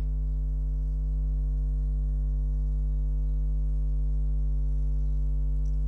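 Steady electrical mains hum: a constant low buzz with many evenly spaced overtones.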